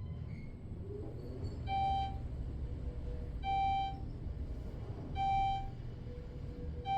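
Elevator car travelling down with a steady low hum, sounding four short electronic beeps spaced about a second and three quarters apart, the signal given as it passes each floor.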